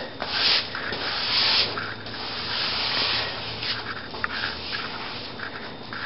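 Wet sponge rubbing back and forth over half-set drywall joint compound, a rasping scrub in repeated strokes, smoothing out the grooves in the mud instead of sanding it.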